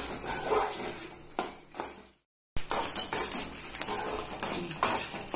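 Steel spoon scraping and clinking against an aluminium kadai, stirring coriander seeds, cumin, mustard seeds and dried red chillies as they roast in a little oil. The sound cuts out completely for a moment about two seconds in, then the stirring goes on.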